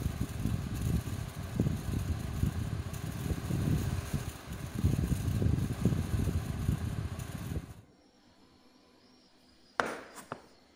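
A dense low rumbling noise that cuts off abruptly about eight seconds in. Near the end comes a sharp knock on a wooden desk, then a lighter second knock.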